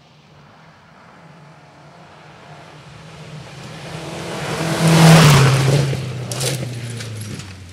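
A forest rally car approaching and passing at speed on a gravel stage: the engine and tyre noise build to a peak about five seconds in, the engine note drops in pitch as the car goes by, and it fades away, with a few sharp ticks just after it passes.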